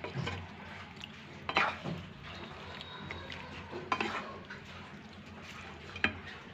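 Wooden spatula mixing raw chicken with yogurt and spices in a nonstick pan: soft wet stirring with a few knocks and scrapes of the spatula against the pan.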